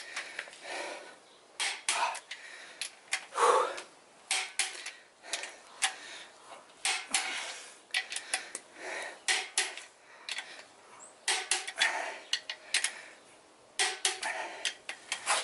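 A ratchet-head torque wrench clicks and metal clinks against metal as the ARP main-stud nuts on a 6.7 Cummins block are tightened towards 125 ft-lb. The sharp metallic clicks come in short clusters as the wrench is swung, with a short lull about two-thirds of the way through.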